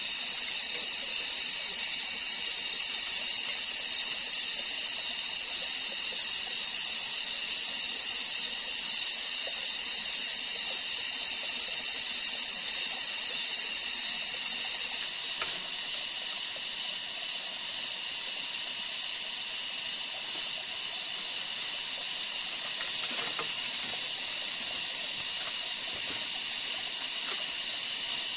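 Steady high-pitched drone of rainforest insects, with faint scattered clicks in the second half.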